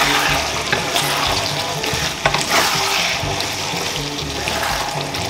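Thick soy-sauce braise of pork belly and boiled eggs sizzling in a pan while a spatula stirs it as the sauce reduces, with background music.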